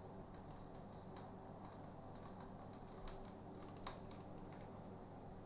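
A few faint, irregular clicks and ticks of a small screwdriver working the motherboard screws of an opened laptop, over a low steady hum.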